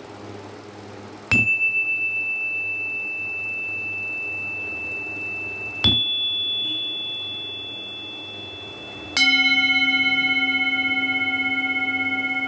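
Three mallet strikes on large metal chime tubes, each ringing on long. The first two give single high, pure tones. The third, about nine seconds in, is louder and lower, with several overtones, and rings with a slow pulsing.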